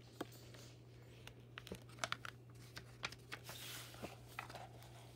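Handling and turning the page of a hardcover picture book: scattered soft clicks and paper rustles, with a brief swish of the page about three and a half seconds in, over a faint steady hum.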